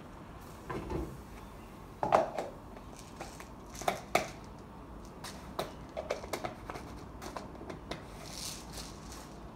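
Kitchen handling noises at a counter: scattered knocks and clicks of small containers and utensils being picked up and worked by hand, the loudest knock about two seconds in, then a quick run of small clicks and a brief rustle near the end.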